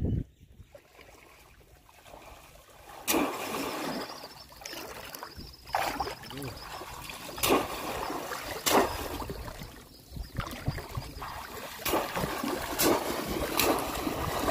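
Shallow floodwater splashing as a bamboo polo fish trap is thrust down into it and men wade and thrash through the water: a run of sharp splashes, about one to three seconds apart, starting about three seconds in over a steady sloshing.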